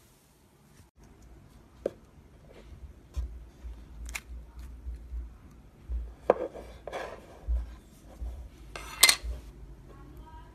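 Slime being pressed, poked and squished by hand, giving scattered small clicks, crackles and squishes over a low handling rumble, with a louder sharp crackle about nine seconds in.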